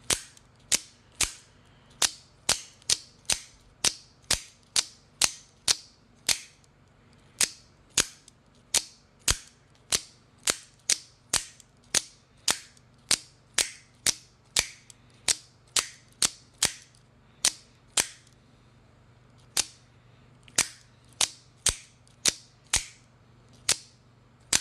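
AKC F-16 out-the-front automatic knife firing its blade out and retracting it over and over, each stroke a sharp snap, about two a second, with a short pause about three-quarters of the way through.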